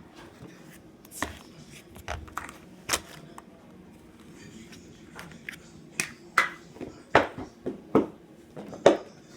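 Slime being squeezed and worked by hand, giving irregular sharp clicks and pops, a few at first and then about two a second over the last few seconds.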